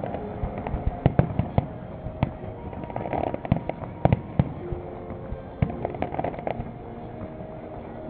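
Fireworks display: an irregular series of sharp bangs and crackles from bursting shells, densest in the first few seconds and thinning out toward the end.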